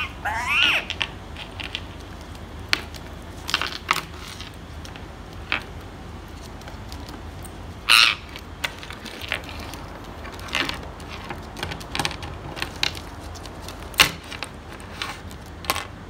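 Two Indian ringneck parakeets: a short squawking call about half a second in and a loud harsh squawk around eight seconds in as they tussle, with scattered clicks and taps of beaks, claws and a key toy on the tabletop.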